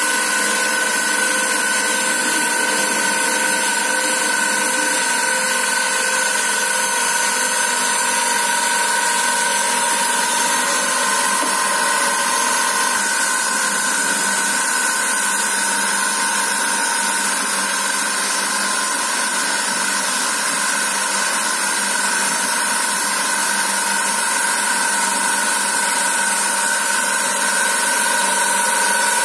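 Thread-rolling machine running: a steady mechanical hiss with a constant whine that does not change.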